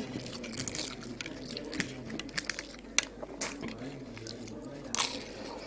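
Chewing of syrup-soaked galash phyllo pastry, wet and squishy, with scattered crisp crackles, the sharpest about three seconds and five seconds in.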